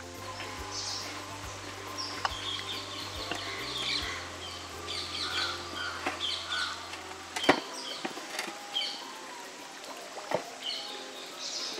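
Small birds chirping in many short, high notes throughout. Underneath, a low steady hum stops abruptly with a sharp click a little past the middle.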